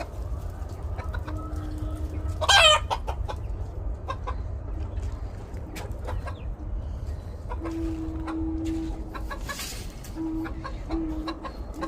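Domestic chickens clucking with drawn-out low calls, one loud squawk about two and a half seconds in, over a steady low rumble.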